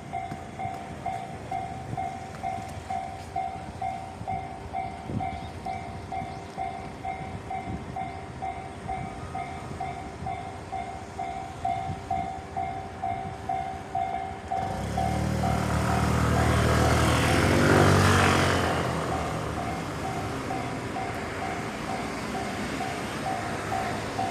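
Japanese level-crossing warning bell dinging steadily over and over; about fifteen seconds in a train comes through the crossing, its rumble swelling to a peak a few seconds later and running on loudly under the bell.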